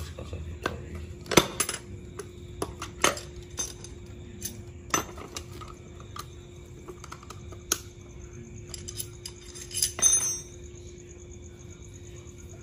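Metal hand tools and parts clinking and knocking against each other in a dozen or so sharp, irregular strikes, over a faint steady hum.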